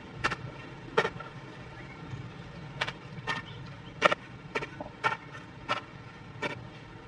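A long stick being jabbed down into the soil to dig a hole, giving sharp strikes at irregular intervals of about one a second over a steady low background noise.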